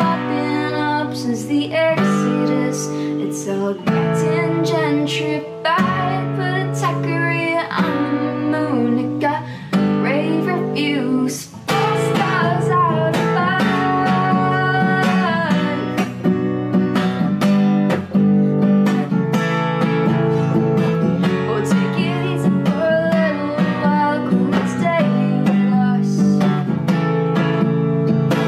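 Steel-string acoustic guitar strummed in chords, fitted with a capo, with a woman singing along. There is a brief pause in the strumming about eleven seconds in.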